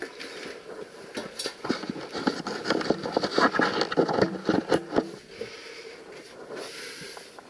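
Close scraping, rustling and irregular knocks of a person clambering through a narrow rock passage in an old copper mine, with clothing and gear rubbing against the rock. It is busiest and loudest in the middle, then settles to quieter shuffling near the end.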